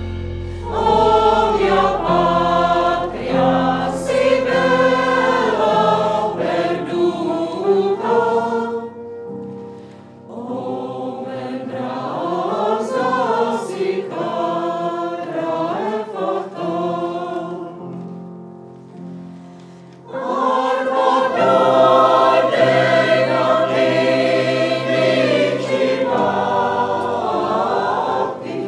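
Mixed choir of women's and men's voices singing, in three phrases with short breaks about ten and twenty seconds in.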